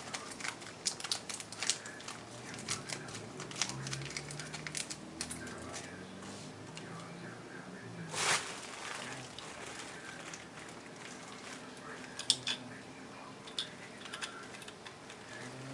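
Small hand-handling sounds: scattered light clicks, ticks and rustles of a screwdriver, batteries and the plastic battery cover being worked on a battery-operated Christmas ornament. One louder brief noise comes about eight seconds in, and a few sharper clicks about twelve seconds in.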